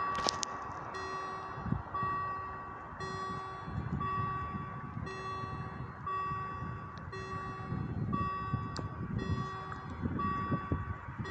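Electronic warning gong (E-Gong) of a Scheidt & Bachmann EBÜT 80 railway level crossing, sounding from its loudspeakers as an evenly repeating chime about once a second. It is the sign that the crossing's warning lights are on and a train is approaching.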